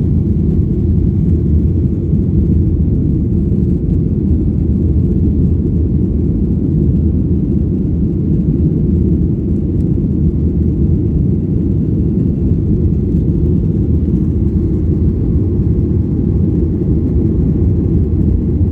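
Steady low rumble of engine and airflow noise heard inside the cabin of a Boeing 737-800 airliner.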